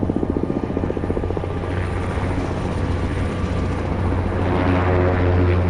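Sikorsky S-58T helicopter in flight: rotor beating with rapid pulses in the first couple of seconds, over a steady low drone that grows a little louder near the end.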